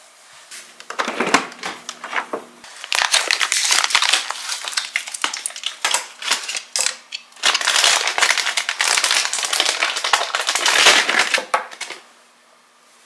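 Plastic packaging crinkling and rustling in repeated bursts of crackly handling, as a bag of dog treats is rummaged and opened. It stops about a second before the end.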